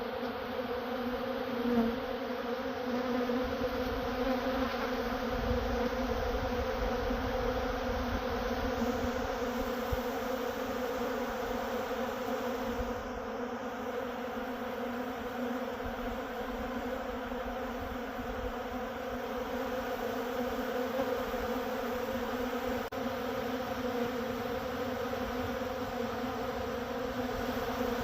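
Many honeybees buzzing together in a steady, even hum, with a brief louder swell about two seconds in.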